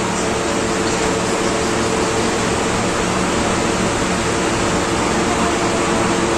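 Steady, loud rushing noise with a faint low hum beneath it, unchanging throughout.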